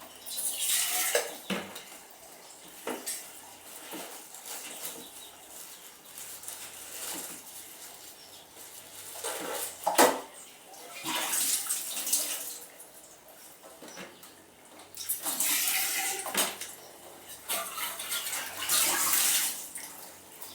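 Dishes being hand-washed in a basin of water: splashes and sloshes come and go in several bursts, with knocks of utensils and one sharp clink about ten seconds in.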